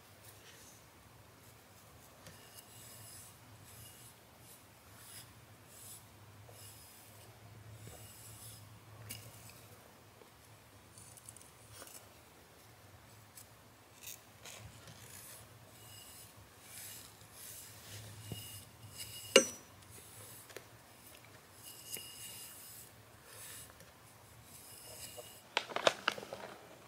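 Faint, repeated rasping strokes of a plastic-bristled pet brush through a cat's fur, with one sharp click about two-thirds of the way through and a short burst of rustling near the end.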